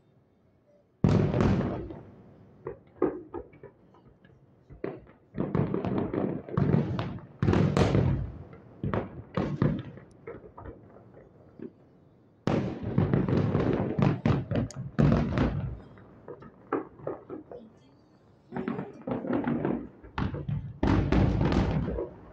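Fireworks shells bursting in a long run of booms and bangs, each fading away. The loudest volleys come about a second in, about halfway through, and near the end.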